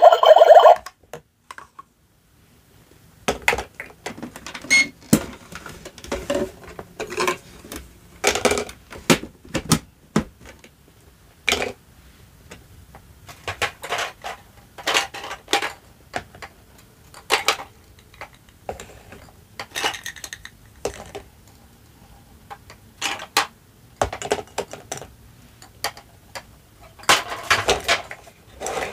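Plastic toy dishes and toy food clattering and tapping as they are set down one after another on a plastic tray: irregular clicks and knocks. A short electronic toy tone sounds for the first second.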